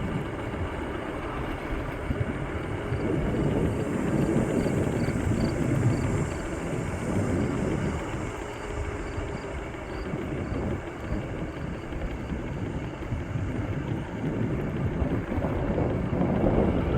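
Wind buffeting the microphone and wheel rumble from a Bird electric scooter rolling along the pavement, rising and falling in level. A faint, regular high ticking runs through the middle stretch.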